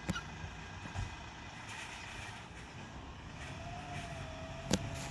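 Side-loading garbage truck working a bin: its engine runs steadily, a thin hydraulic whine from the lifting arm starts about halfway through, and a few sharp knocks sound, the loudest near the end.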